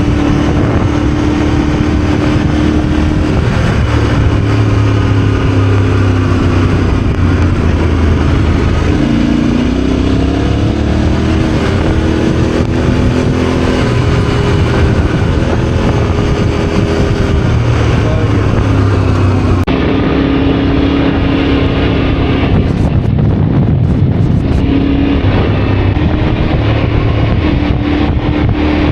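Yamaha Ténéré adventure motorcycle engine running under way, its note falling and rising several times with throttle and gear changes, over a steady rush of wind and road noise.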